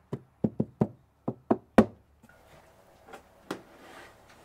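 A rapid run of about seven sharp knocks in under two seconds, a gloved hand tapping a plywood repair patch set into a fiberglass hull. Then come faint scraping, likely a plastic spreader working epoxy filler over the patch, and two more knocks.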